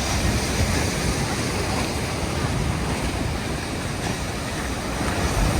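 Lake Michigan surf washing and breaking against a concrete pier, a steady heavy roar with wind rumbling on the microphone; it swells a little louder near the end.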